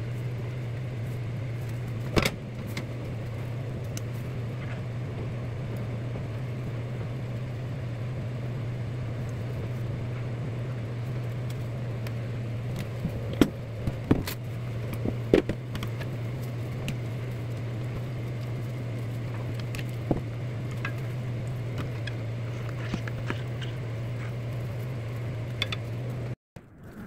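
A steady low electrical hum throughout, with scattered light clicks and taps of plastic food containers being handled and a few sharper knocks near the middle.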